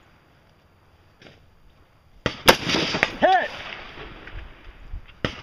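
A single rifle shot from an AR-15-style rifle about halfway in, followed less than a second later by a ringing tone that rises and falls, typical of a steel target being hit downrange. A second sharp report comes just at the end.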